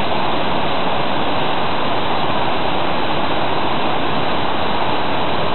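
A waterfall: white water rushing down a steep rocky cascade, loud and steady.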